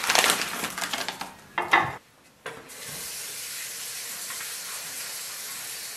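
Rustling and crinkling of hands working in the kitchen for about a second and a half, then a brief dropout and a steady, even hiss.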